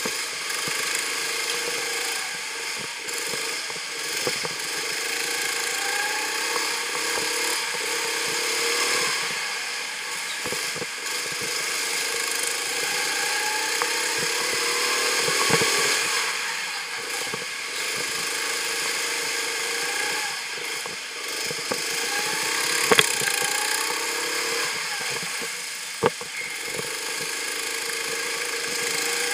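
Go-kart engine heard from the driver's seat, its pitch rising again and again as it revs up out of corners and falling away as it lifts off, over a steady rush of engine and wind noise. Two sharp knocks stand out in the last third.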